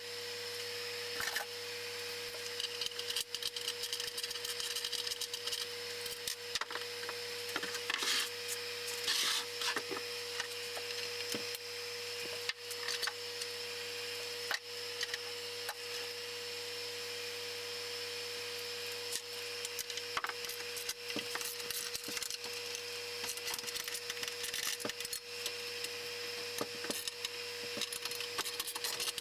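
Small metal clicks, rattles and scrapes of hand tools and loose parts as a benchtop band saw is taken apart, over a steady hum.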